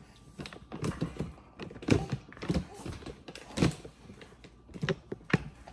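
Spatula knocking and scraping against a mixing bowl while toppings are folded into cookie batter: a string of irregular clicks and knocks.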